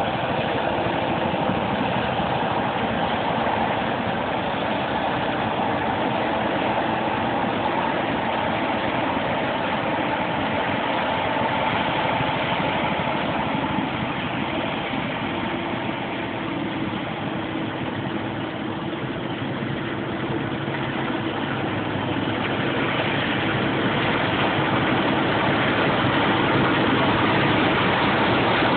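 Claas Lexion 550 combine harvester running steadily while harvesting wheat. The sound dips a little in the middle and grows slightly louder near the end.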